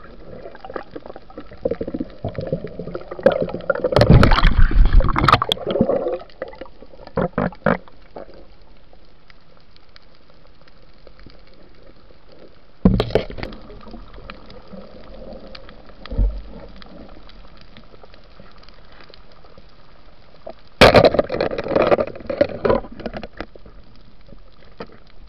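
Muffled underwater sound through a camera's waterproof housing: a steady hiss, broken three times by loud bursts of bubbling, rushing water and knocks against the housing.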